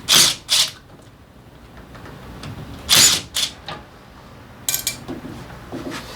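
Workshop tool noises on a motorcycle engine: two pairs of short hissing bursts, a ringing metallic clink near the end, then quick rhythmic clicking.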